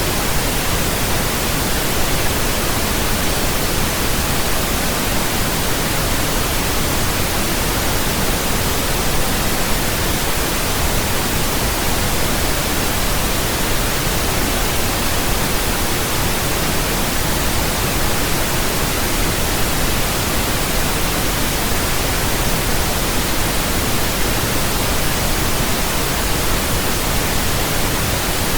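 Steady pink noise: an even, unchanging hiss that is deeper than white noise, without any tones or events.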